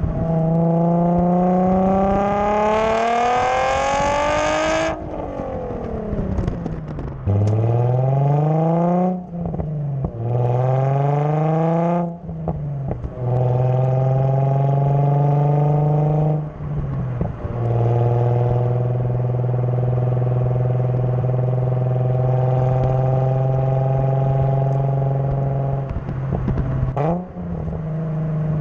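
Nissan NISMO Z's V6 through a titanium Tomei dual-exit exhaust with the catalytic converters kept on. It pulls hard through the gears, the pitch rising and dropping at each upshift, then cruises at a steady pitch with short lifts off the throttle and a quick blip near the end.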